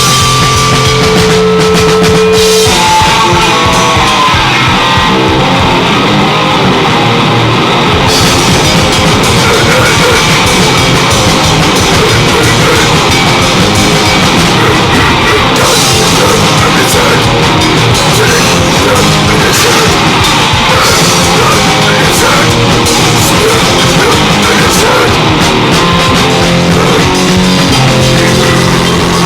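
Loud grindcore: heavily distorted guitar and drums. It opens with about two seconds of held notes, then breaks into a dense, very fast drum-and-guitar section that runs on without a let-up.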